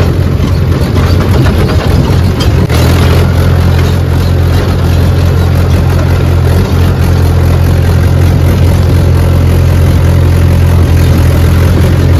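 Tractor diesel engine running steadily while the tractor is driven, a loud low drone that steps up slightly about three seconds in.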